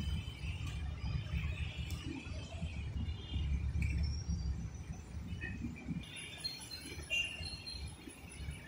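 Faint bird chirps, with a few short higher whistles about two-thirds of the way through, over a steady low rumble.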